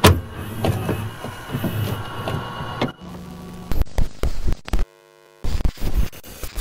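Glitchy static and noise in the style of a worn VHS tape: dense crackle with clicks and buzzing hum for the first few seconds, then choppy bursts of noise that cut in and out abruptly, with a brief near-silent gap near the end.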